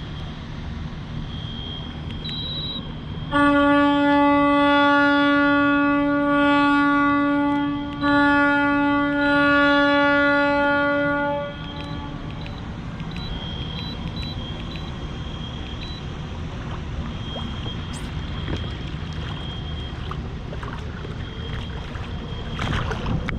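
A deep horn sounds two long blasts, about five and three and a half seconds long, with only a brief break between them.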